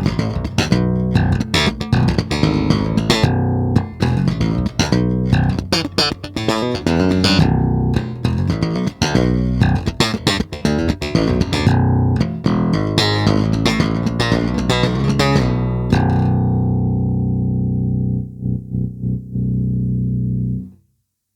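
Chris Larkin Reacter beech-bodied electric bass guitar played with a run of quick, sharply attacked notes. The last note rings on for several seconds with a few light taps, then is cut off short just before the end.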